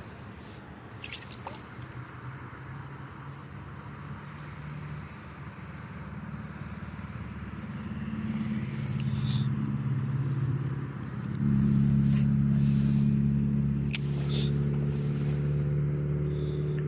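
A motor vehicle's engine running steadily nearby, its hum growing louder over several seconds and getting sharply louder about two-thirds of the way in. A few light clicks come and go over it.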